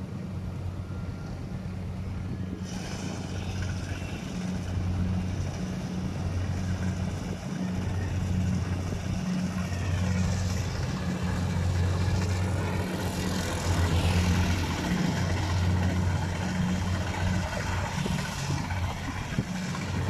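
Rice combine harvester's engine running with a steady low hum, growing louder as the machine works closer through the field.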